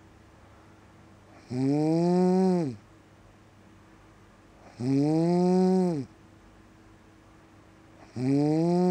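A cat snoring really loud: three long, pitched snores about three seconds apart, each rising slightly and then dropping in pitch as it ends.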